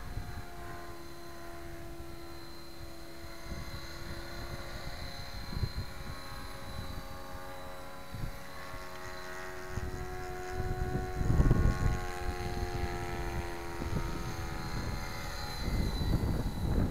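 Gaui X5 electric RC helicopter in flight: the motor and drive whine with rotor noise, the pitch wavering slightly as the load changes. A low rumble swells about eleven seconds in and again near the end.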